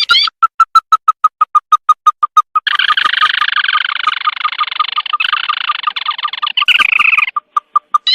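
Recorded call of the sintar mata merah bird played as a trapping lure: a rising swept note, then a run of short piping notes that speed up into a dense chattering trill for about four seconds, then slower piping notes again and another rising note at the end.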